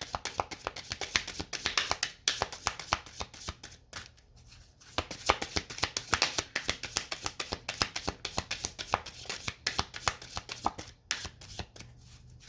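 Deck of tarot cards being shuffled by hand: a quick run of papery flicks and riffles, pausing briefly about two seconds in, for about a second near four seconds, and again near the end.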